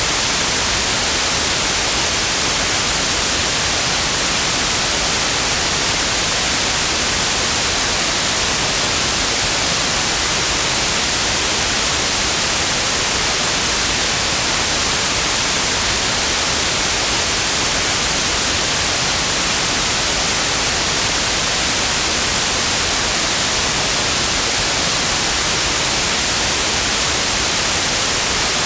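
Synthetic white noise: a steady, loud, even hiss with no changes.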